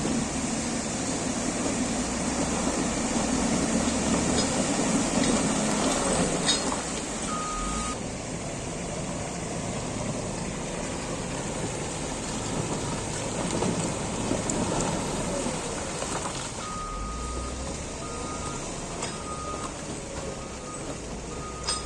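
Caterpillar 140GC motor grader's diesel engine working steadily under load, with its reversing alarm sounding briefly about seven seconds in and beeping repeatedly over the last five seconds as the grader backs up.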